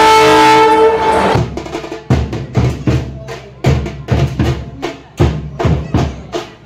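Vande Bharat Express train horn sounding one loud, steady chord that stops about a second and a half in. Drums follow, beating about three strokes a second.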